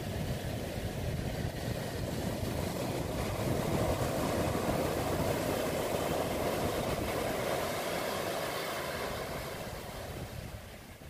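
Ocean surf washing up the beach with wind buffeting the microphone, a steady rushing noise that swells in the middle and fades near the end.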